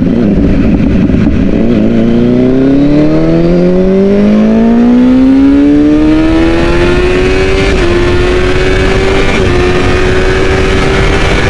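Kawasaki ZX-10 1000 cc inline-four engine pulling under throttle. Its note rises steadily for about five seconds, then holds a steady pitch, over a constant rush of wind noise.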